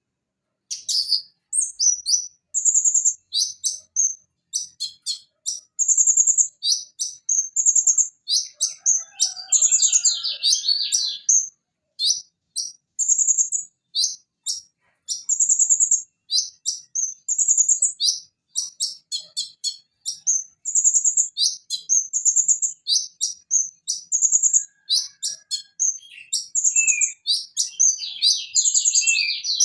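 Purple-throated sunbird (konin) singing: a fast run of high, sharp chirps and short trills. A scratchy trill comes in twice, near 10 s and again near the end. The song begins about a second in.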